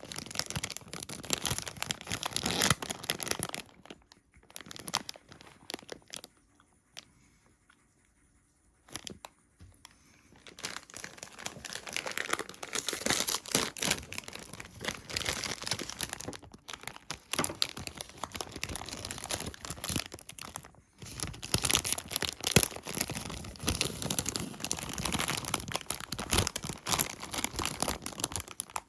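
Close-miked crinkling and tearing of food packaging being handled and opened, with a near-silent pause from about six to ten seconds in.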